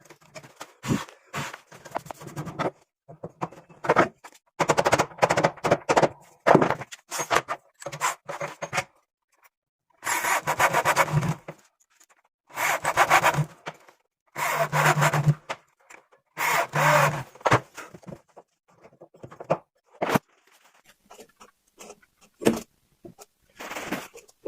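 Wood being worked by hand tool or machine: repeated scraping strokes, each up to about a second and a half long, with short pauses between them.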